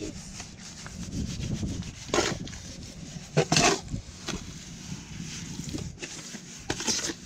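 A metal trowel scraping and scooping damp sand-and-cement mortar mix around a plastic tub, with a few sharper, louder scrapes against the tub.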